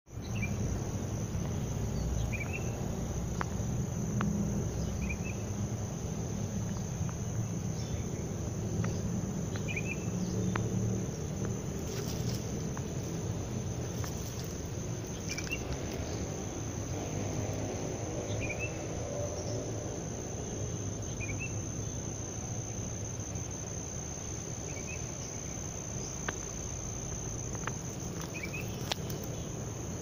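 A steady, high insect drone, with a bird giving a short chirp every few seconds over a low, steady background rumble.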